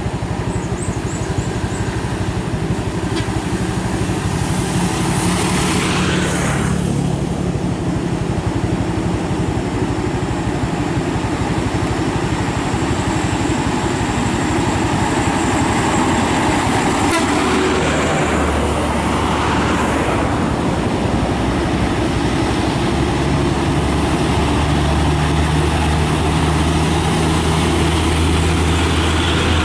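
Heavy diesel trucks running uphill and passing close by, with a deep, steady engine drone. Vehicles rush past about six seconds in and again around eighteen seconds, and a truck's low engine note grows louder near the end.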